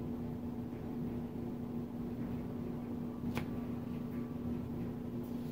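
Steady low machine hum, with a single light click about three and a half seconds in.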